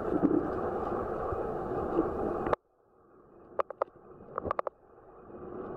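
Muffled underwater sound from a submerged camera: a steady rush of water that cuts out suddenly about halfway through, followed by a few sharp clicks, before the rushing noise swells back in near the end.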